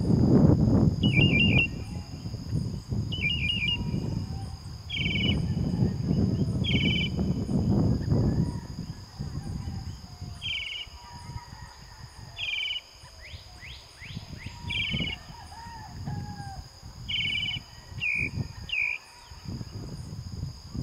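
Northern mockingbird singing: short phrases, some as rapid trills, repeated every one to three seconds. Under it runs a steady high insect drone, and a low rumble is loudest in the first half.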